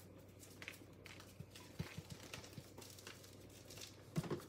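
Faint scattered ticks and taps of a plastic seasoning shaker being shaken over a raw turkey, with a louder knock about four seconds in.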